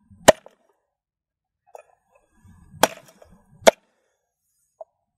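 Cleaver chopping through grilled chicken on a wooden chopping block: three sharp blows, one just after the start and two close together near the middle, with a few faint knocks between.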